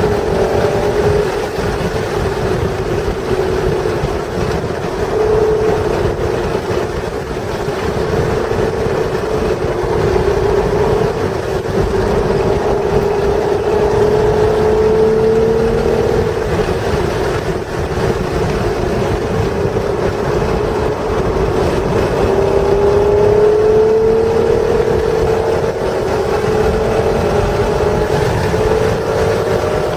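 1996 Acura NSX's stock 3.0-litre V6 driven hard on a race track, its note climbing slowly through the revs twice, with wind noise over it.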